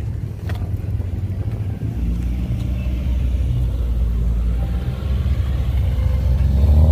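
Subaru WRX's exhaust rumbling as the car rolls slowly past, getting louder as it comes close, with a short rev rising in pitch near the end.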